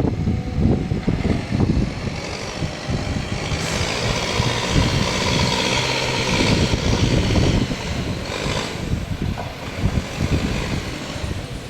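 A JCB earthmoving machine's diesel engine running, with a band of hiss that rises from about four seconds in and drops away near eight seconds.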